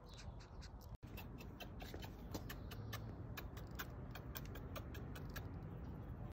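A rapid, irregular series of sharp clicks over a steady low rumble, with a brief dropout about a second in.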